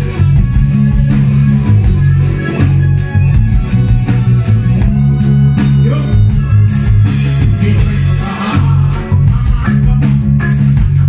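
Live band playing loudly, with electric guitar, a heavy bass line and drum kit; a male vocalist sings over the band.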